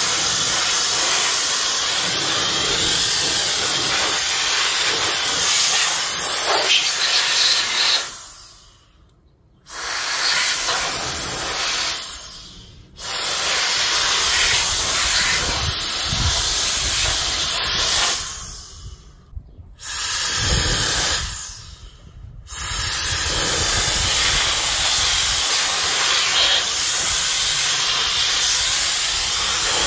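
Handheld electric mini jet fan (120 W, rated 130,000 rpm) running flat out as a loud, steady, high-pitched airy rush. It is switched off four times, each time winding down over about a second before starting again abruptly.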